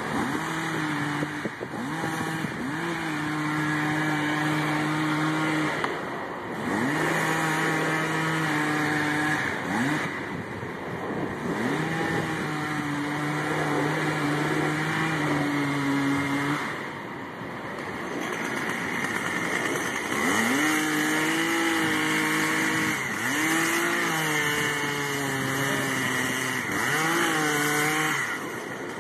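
A two-stroke chainsaw cutting into the trunk of a large willow during felling. It runs in stretches of several seconds, and its engine note sags as the chain bites and recovers through each cut, with brief let-offs in between.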